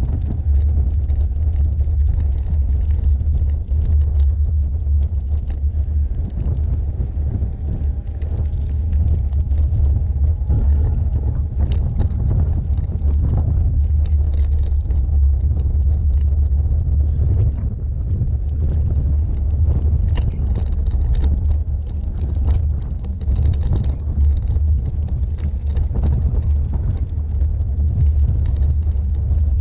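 Carrera Crossfuse e-bike ridden over a gravel track: a steady low rumble from the tyres and the jolting of the bike reaching the mounted camera, with scattered knocks and rattles from bumps and stones. A faint high whine comes and goes.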